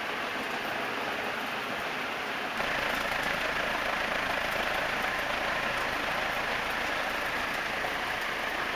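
Early-1980s 4 Seasons Spinner 36-inch ceiling fan with four curved metal blades running at full speed, about 350 RPM: a steady rush of moving air that gets louder and fuller about two and a half seconds in.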